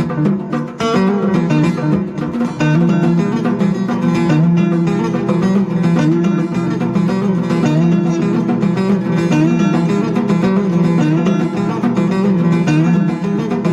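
Background music made of a quick run of short plucked notes over a steady low part.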